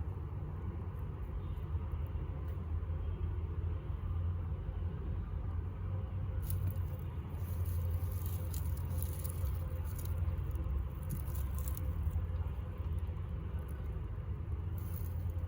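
A steady low rumble with faint rustling and crackling, most of it from about six to eleven seconds in and briefly again near the end.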